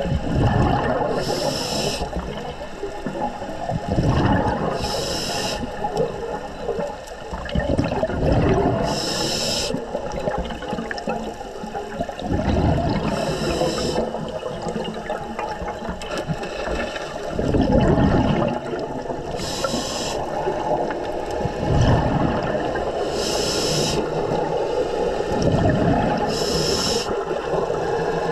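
A scuba diver breathing through a regulator underwater. Seven breaths come about every four seconds, each inhalation a short hiss and each exhalation a low burst of bubbling.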